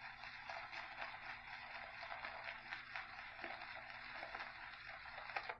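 Shaving brush whipping shaving-soap lather in a bowl: a faint, steady wet swishing with fine crackles, stopping near the end.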